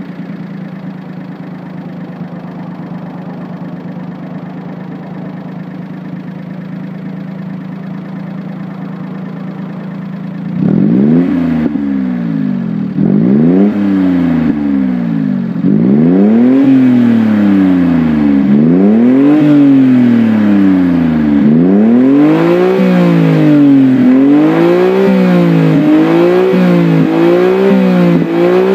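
Honda Beat's 656 cc three-cylinder engine with JVCS exhaust tuning, heard at the tailpipe: it idles steadily for about ten seconds, then is blipped again and again, each rev rising and falling in pitch. The blips come quicker toward the end, with revs marked at about 2000 and then 8000 rpm.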